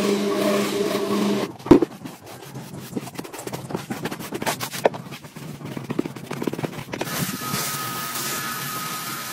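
A rotary floor scrubber's motor humming steadily, cutting off with a thump after about a second and a half. Faint scattered clicks follow, then about seven seconds in a pressure washer starts spraying with a steady hiss and a high whine.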